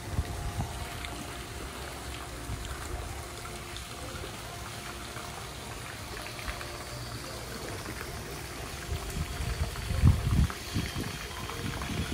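Steady rushing hiss of wind and rain outdoors, with gusts buffeting the microphone about ten seconds in.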